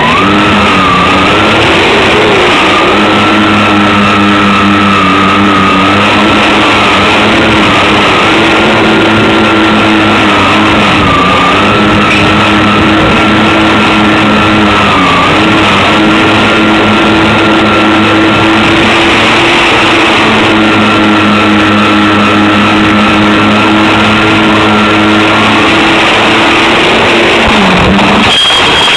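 Electric motors and propellers of a homemade twin-engine RC plane running steadily with a high whine, their pitch dipping briefly now and then, over heavy rushing noise. Near the end the pitch sinks and the motors stop.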